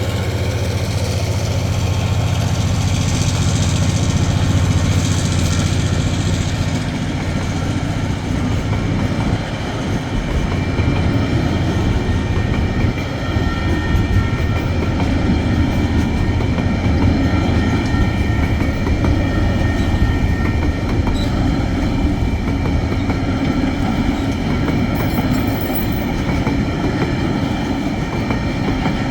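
A diesel freight train passing. A low diesel locomotive engine rumble is strongest for the first several seconds, then the wagons keep rolling by with a steady clickety-clack of wheels over the rails.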